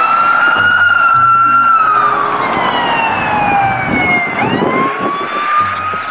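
Police SUV's electronic siren in wail mode: one slow rise and fall in pitch, dropping low about four seconds in and then climbing again.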